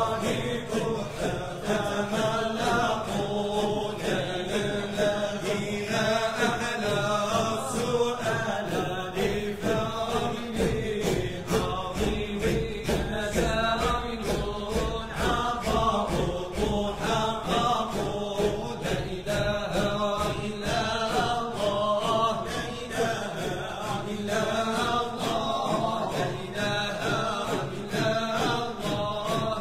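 Moroccan Sufi sama' group chanting a dhikr in Arabic: several voices singing together in a continuous, repeating devotional chant.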